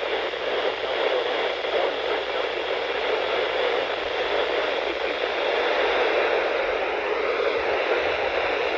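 Radio static: a steady hiss of noise from a radio receiver, with no tones or voice coming through.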